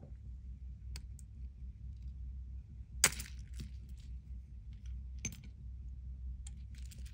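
Small metallic clicks and taps of a fine screwdriver working at the coin-cell battery and its clip inside an open quartz watch case, a few separate clicks with the sharpest about three seconds in.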